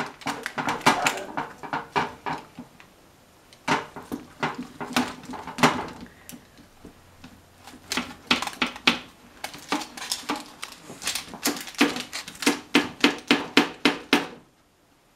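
A wheel pizza cutter worked back and forth through a cauliflower-crust pizza, clicking and knocking against the metal baking sheet beneath it in quick runs of strokes that come thickest in the second half, stopping shortly before the end.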